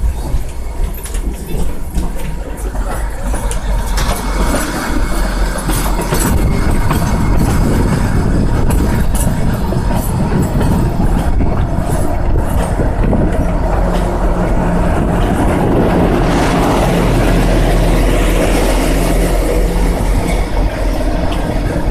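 Kalka–Shimla narrow-gauge toy train hauled by a diesel locomotive passing close alongside: the engine running and the wheels clattering on the rails, growing louder about four seconds in and staying loud.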